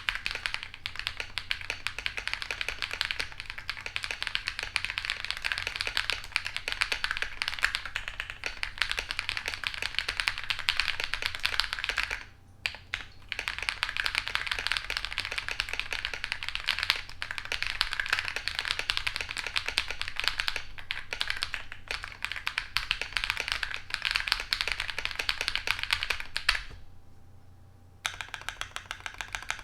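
Typing sound test on a KIIBOOM Phantom 81 mechanical keyboard fitted with KIIBOOM Pink Rose switches and PBT MDA-profile keycaps: a fast, dense run of keystrokes, pausing briefly about twelve seconds in and again near the end.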